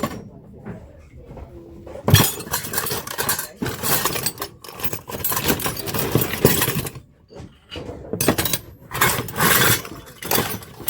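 Glassware and dishes clinking and clattering as they are handled and set down, in two long stretches of busy clatter with a short lull between them.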